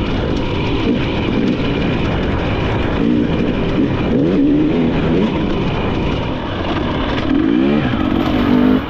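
Dirt bike engine being ridden hard on an enduro trail, revving up and easing off again and again as the throttle is worked, over a steady rushing noise. The revving climbs sharply near the end.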